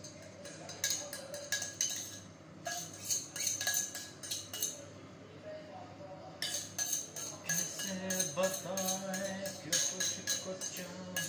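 Metal spoon clinking rapidly against the inside of a small steel cup as masala is stirred into water, in bursts of clinks with short pauses between them.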